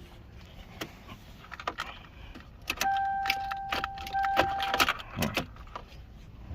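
Car keys jangling and clicking as the key is worked in a Toyota Corolla's ignition during a start attempt. A steady electronic warning tone sounds for about two seconds in the middle.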